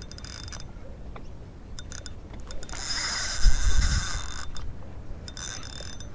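Spinning reel being wound while a hooked fish is played, its gears whirring and clicking in spells, most strongly from about three to four and a half seconds in. A brief low rumble comes in the middle.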